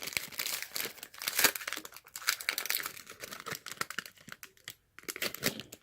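Plastic wrapper of a football trading-card pack being torn open and crinkled in the hands, an irregular crackling that dies away near the end.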